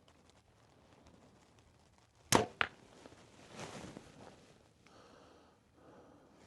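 A Mathews LIFT 33 compound bow shot: a sharp crack as the string is released a little over two seconds in, then a second sharp hit about a quarter second later as the arrow strikes the target at about 20 yards.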